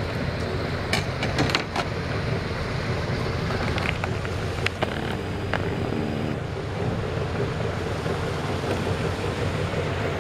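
A boat's motor running steadily, mixed with wind on the microphone. A few short sharp clicks sound in the first five seconds.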